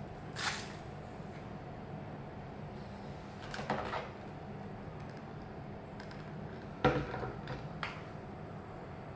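Xiaomi Mi Robot Vacuum Mop P running in mopping mode with a steady low hum, broken by a few short knocks. The loudest knock comes about two-thirds of the way in.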